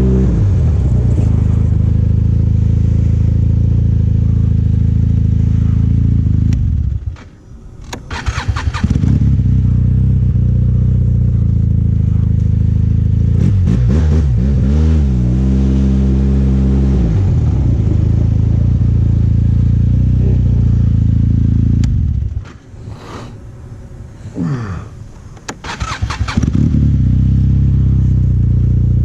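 Snowmobile engine running hard at a steady pace, easing off briefly about seven seconds in and again for a few seconds near the end before coming back up to speed.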